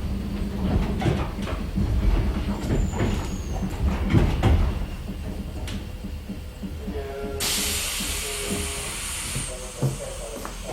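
Inside a JNR Class 70 electric multiple-unit car slowing to a stop: the car rumbles and the wheels click over rail joints, then fade to a quieter roll with a few short squealing tones. About seven seconds in, a sudden hiss of compressed air lasts about two seconds.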